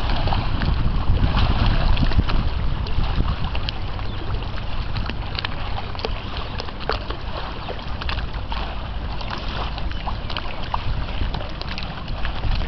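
Wind buffeting the microphone in an uneven low rumble, over choppy river water lapping and splashing in scattered small ticks.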